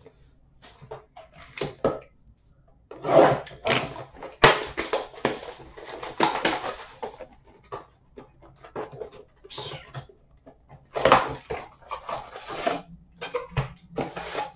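Hockey trading cards, pack wrappers and a cardboard blaster box being handled as card packs are opened: irregular rustling and crinkling with short light clicks.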